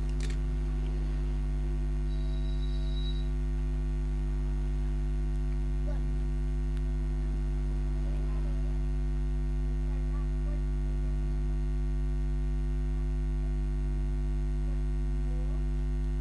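Steady electrical mains hum: a low buzz with a stack of its overtones, holding at an even level.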